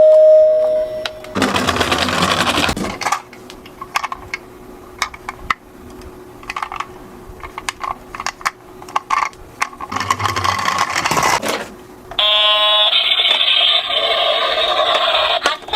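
Small plastic toy cars clicking and rattling as they roll, with two longer bursts of rattling. Electronic toy sound effects come in too: a steady beep at the start and a bright electronic jingle for the last few seconds.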